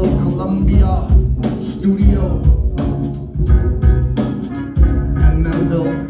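A live band playing a steady drum-kit beat, with upright bass and keyboards.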